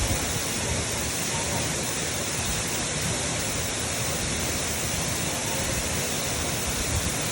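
Waterfall pouring down, a steady, even rush of falling water.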